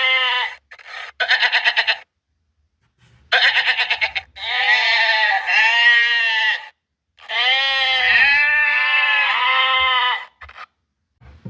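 Goats bleating: two short, quavering calls, then two long drawn-out bleats, with silent gaps between them.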